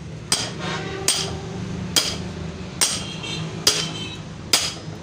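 A hammer striking metal: six evenly spaced blows, a little faster than one a second, each with a short metallic ring.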